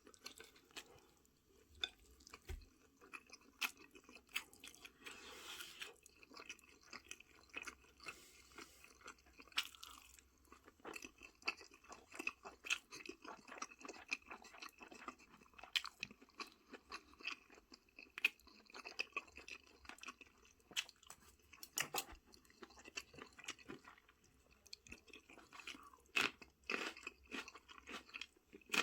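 A person eating close to the microphone: continual chewing and crunching, a stream of short wet clicks and crunches.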